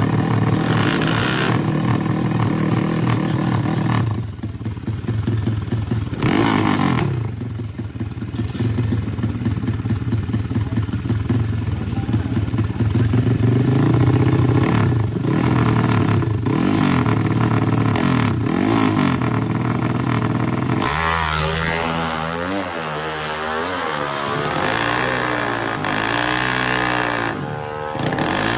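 Drag-racing motorcycle engine revved over and over, its pitch climbing and dropping with each blip of the throttle, faster in the last several seconds.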